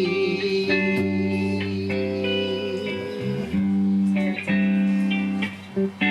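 Live guitar music with no singing: plucked chords that change every second or so, with a brief stop and restart near the end.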